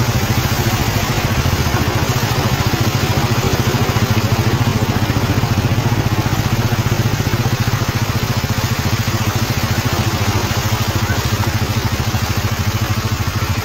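Honda Super Cub's small single-cylinder four-stroke engine running steadily under way through shallow floodwater, with a constant rushing hiss over it.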